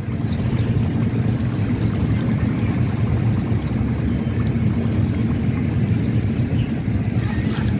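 Steady low rumbling noise with a faint hum in it.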